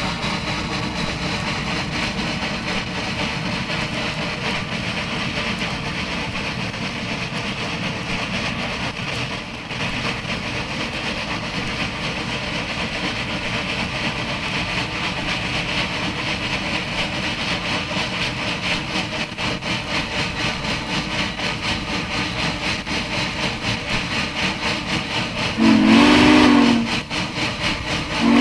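Duluth, Missabe & Iron Range 2-8-8-4 Yellowstone steam locomotive No. 225 working steadily, its exhaust beating in an even, rapid rhythm, heard from a vehicle pacing alongside. Near the end the steam whistle gives one short blast, and a second blast starts at the very end.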